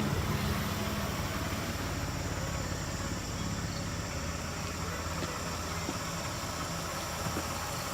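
Steady engine and road noise heard from inside a moving car, a low hum under an even rush.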